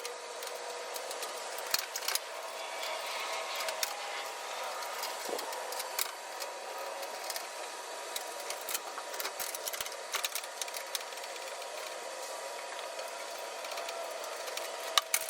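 Scattered light clicks and rattles of metal parts being handled, with a cluster of sharper clicks near the end, over a steady background hum.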